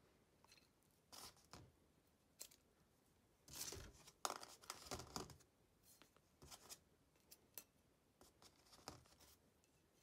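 Faint metal handling: light clicks and short scrapes of a steel drive shaft being fitted into the splined side gear of a Fiat 126 differential, with the loudest scraping in the middle. The new shaft is a tight fit and does not turn freely.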